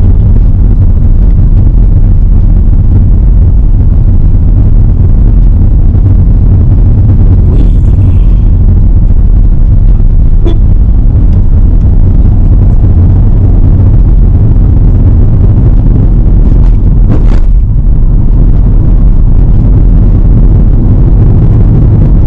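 A car driving, heard from inside the cabin: a steady, loud low rumble of road and engine noise, with a faint click about ten seconds in and a brief burst of noise near seventeen seconds.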